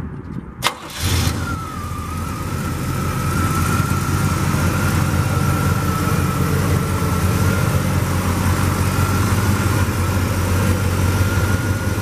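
1970 Oldsmobile Cutlass Supreme's rebuilt Rocket 350 V8 starting: a sharp click, then it catches with a brief rev about a second in and settles into a steady idle. A thin steady whine runs over the idle.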